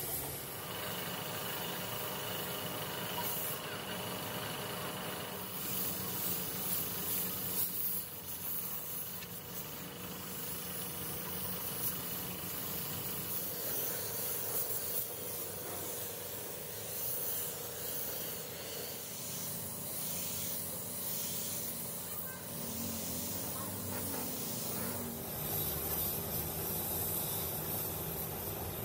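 Steady hissing, with a faint hum underneath.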